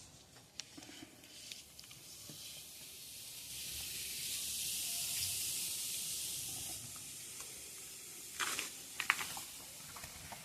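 A steady hissing spray lasting about three seconds, followed a little later by a few sharp knocks.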